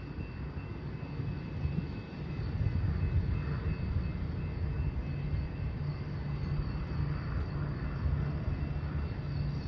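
Low, steady rumble of a slow-moving rail work train pulling away down the track, with diesel engine drone and the rumble of its rail cars; it grows a little louder about two and a half seconds in.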